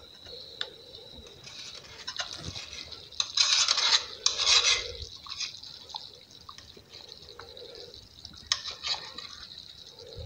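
Thick peanut sauce simmering in a pot, its bubbles plopping, with a louder stretch of scraping from about three to five seconds in, like a spoon working the bottom of the pot.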